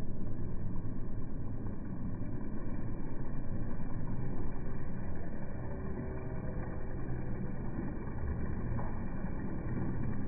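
Muffled, low rumbling noise as a pack of carbon racing bicycles sweeps past close by, mixed with wind on the microphone.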